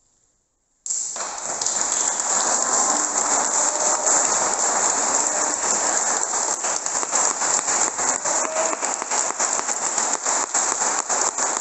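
Near silence for about a second, then an audience breaks suddenly into applause. The clapping keeps on evenly.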